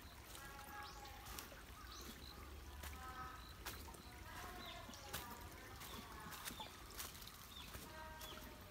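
Footsteps crunching on a path strewn with dry leaves, with birds chirping and a faint trickle of a shallow stream.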